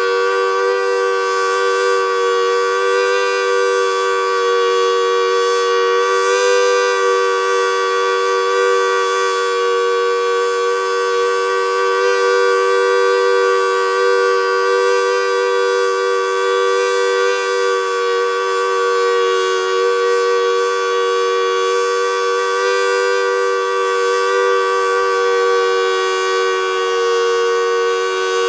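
Federal Signal Model 2T dual-tone outdoor warning siren holding a steady full-alert tone: two loud, steady pitches a little apart, sounding together as one harsh chord. This is an aging unit, described as sick and starting to show its age.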